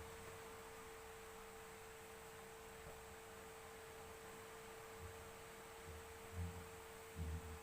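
A faint steady hum at one even pitch, with a few dull low thumps in the second half.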